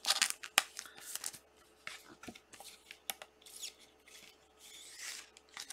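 Plastic card sleeve and holder being handled: a trading card rustled and slid in clear plastic, giving a run of short crinkles and clicks with a longer swish about five seconds in.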